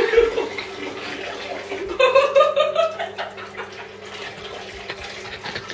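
A steady stream of urine splashing into a toilet bowl's water, with a short rising tone about two seconds in.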